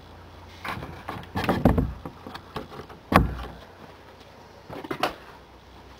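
Wooden chicken-coop door or hatch being handled and shut: a string of wooden knocks and scrapes, with one heavy thump about three seconds in and a couple of clacks near the end.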